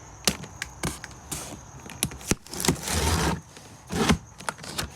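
Cardboard packaging of a firework cake being handled and pulled open: irregular knocks and taps, with a longer rustling, tearing noise about three seconds in.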